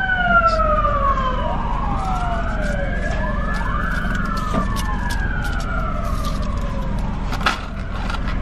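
A wailing siren, its pitch sweeping slowly up and down with two wails overlapping, fading out about seven seconds in, over a steady low hum of an idling car. A sharp click near the end.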